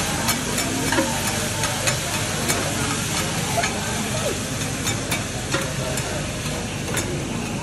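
Meat and vegetables sizzling on a steel teppanyaki griddle, a steady hiss, while metal spatulas scrape and clack against the hot plate in sharp, irregular clicks.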